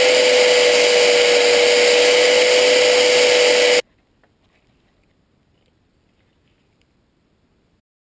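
Electric angle grinder running with a steady whine, which cuts off suddenly about four seconds in and leaves near silence.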